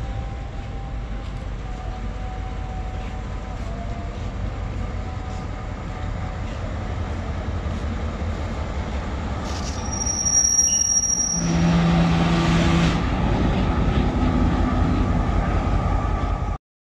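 GMCU-15 diesel-electric locomotive rumbling as it hauls passenger coaches slowly along curved track. About ten seconds in comes a loud high-pitched squeal of wheels on rail. It is followed by louder steady low tones as the locomotive draws level, and the sound cuts off suddenly near the end.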